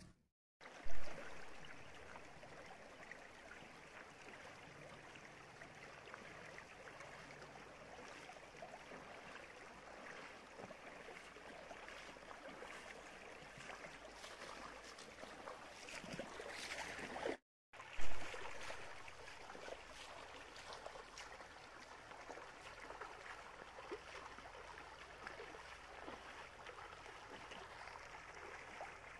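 Shallow stream running over stones, with splashing steps as someone wades through the water. The sound cuts out briefly twice, each time followed by a sharp bump.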